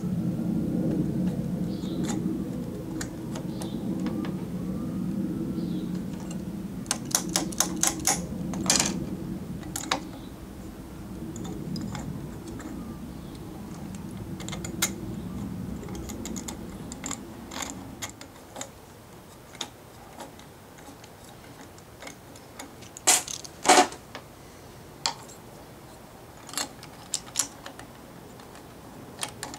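Scattered clicks and clacks of a sharpening jig's blade holder being loosened and reset by hand to fit a blade, with a quick cluster of clicks about eight seconds in and two louder clacks near twenty-four seconds. A low steady hum runs underneath and fades out after about eighteen seconds.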